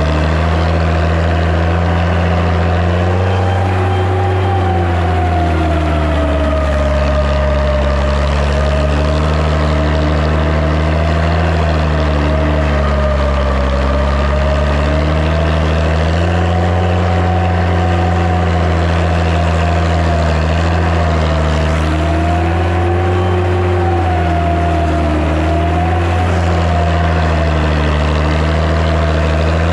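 Massey Ferguson 95X tractor's six-cylinder diesel engine running steadily and loudly, its pitch sagging and recovering slightly a few times.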